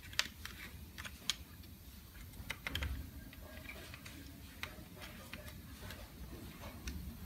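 Light, irregular clicks and ticks of bolts and washers being fitted and turned by hand into a round metal mounting plate on a wicker recliner, with a small cluster of clicks about two and a half to three seconds in.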